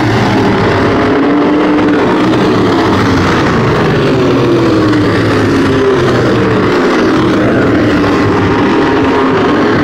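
Dirt-track race car engines running loud and steady as a pack laps the oval. Several engine pitches rise and fall over one another as the cars come past.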